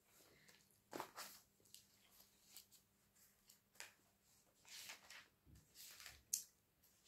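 Faint, irregular rustles and light ticks of paper pages being leafed through, as someone looks up a passage in a book. The sharpest tick comes about six seconds in.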